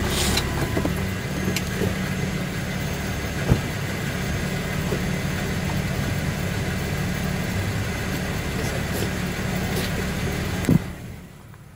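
Pickup truck engine running steadily, with a sharp knock about three and a half seconds in and another near the end, after which the engine sound drops away.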